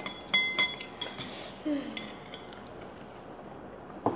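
Chopsticks clinking against a ceramic noodle bowl, a quick run of sharp, ringing clinks over the first two seconds or so, then quieter.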